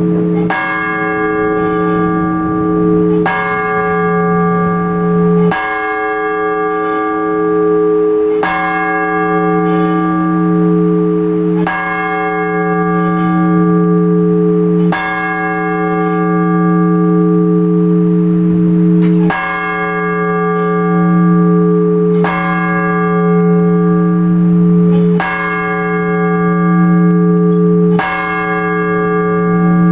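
A large Orthodox church bell struck on its own about every three seconds, each stroke ringing on with a strong low hum into the next. This is the single-bell blagovest that announces the start of a service.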